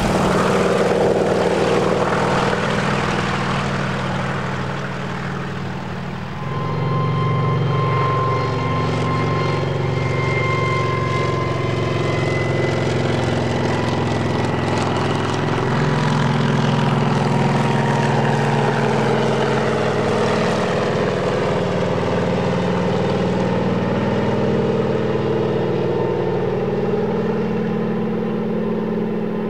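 Kamov Ka-26 helicopter in flight, its two nine-cylinder Vedeneyev M14V-26 radial piston engines and coaxial rotors running steadily and fairly loud. The sound dips a few seconds in, then swells again, with a high thin whine over the engines through the middle part.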